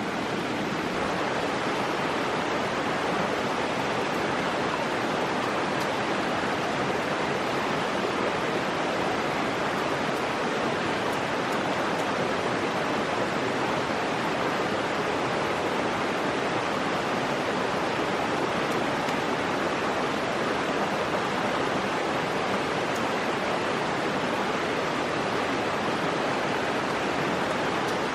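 Stream water rushing steadily, an even, continuous noise.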